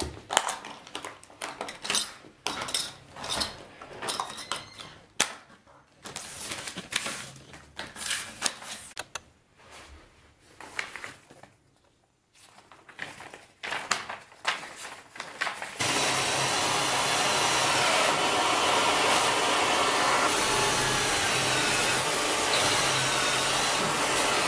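Rustling and clicking of plastic packaging and paper being handled, then a power drill running steadily for about nine seconds, drilling into the ceiling, its pitch wavering slightly, and stopping abruptly near the end.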